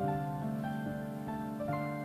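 Slow, gentle background music: held notes that change about every half second.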